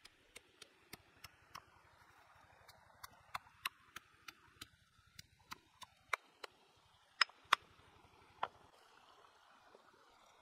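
Pestle pounding red chillies in a stone mortar, a steady beat of about three strokes a second. It ends with three louder, sharper strikes.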